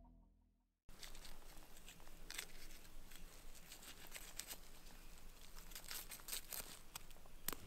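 Knife cutting and tearing meat from a skinned fallow deer carcass, with scattered sharp clicks and snaps, starting about a second in after the tail of fading music.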